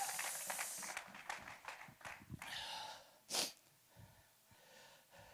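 A man's breathing close to the microphone, with one short, sharp breath or sniff about three seconds in. A spoken phrase fades away at the start.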